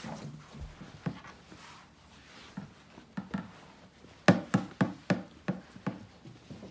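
A series of light knocks and taps, scattered at first, then a quicker run of about three a second starting about four seconds in, the first of that run the loudest.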